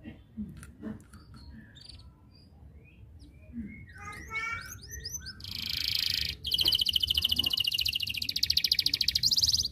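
Domestic canary singing: scattered short chirps, then a quick run of rising notes about four seconds in and a buzzy note. Over the last three seconds a long, very fast rolling trill, the loudest part, stops abruptly.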